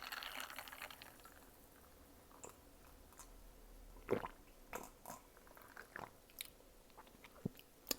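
Close-miked eating: quiet chewing with scattered wet mouth smacks and clicks, the loudest about four seconds in.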